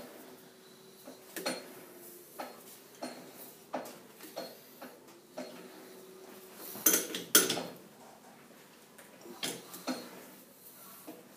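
Four-jaw lathe chuck turned over by hand while a bar is dialled in true with a dial indicator: a run of light metallic clicks and knocks, with two louder metal clunks about seven seconds in.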